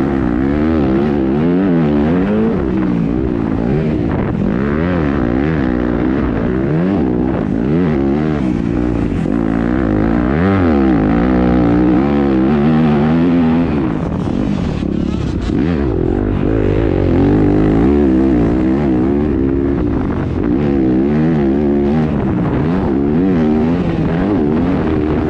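Yamaha YZ250F's single-cylinder four-stroke engine revving up and backing off again and again as the motocross bike is ridden hard, its pitch rising and falling every second or so.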